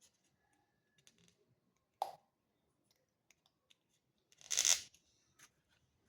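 Wooden toothpick being pushed into a hole in a cardboard tube: faint ticks, a sharp click about two seconds in, and a short scraping rasp a little after four and a half seconds.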